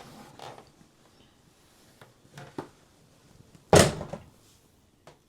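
The door of a front-loading washing machine being shut with one loud thunk a little past halfway, after a few softer knocks and handling sounds.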